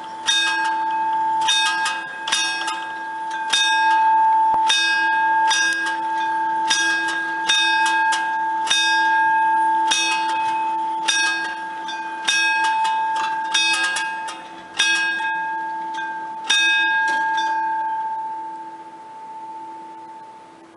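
Italian railway level-crossing warning bell struck repeatedly and irregularly, about once or twice a second, with a steady ring between strokes, sounding while the barriers come down. The strokes stop about 17 seconds in and the ringing fades away.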